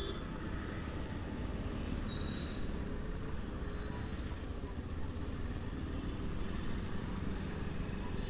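Small commuter motorcycle engine running at steady road speed in traffic, heard as a constant low rumble from the bike itself.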